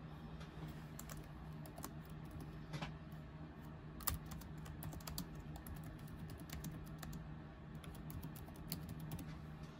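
Typing on a laptop keyboard: a run of irregular, light key clicks as a short phrase is typed out.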